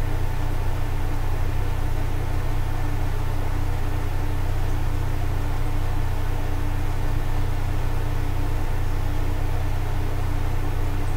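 Steady low droning hum with an even hiss over it, unchanging throughout.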